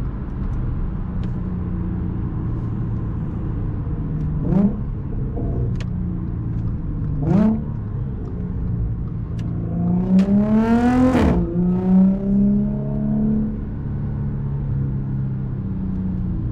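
Supercharged 3.0 V6 of an Audi S4 with an AWE Touring exhaust, running steadily while driving, with two short throttle blips that rise quickly in pitch about 4.5 and 7 seconds in. About 10 seconds in it pulls harder with a rising note, then drops abruptly at a gear change near 11 seconds and settles back to a steady cruise.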